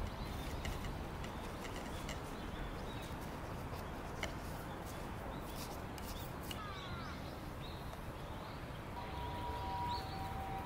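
Dried katsura leaves crackling and rustling as they are packed into a glass jar and pressed down with a wooden spoon, over outdoor background with faint bird chirps. A steady two-note whistle comes in near the end.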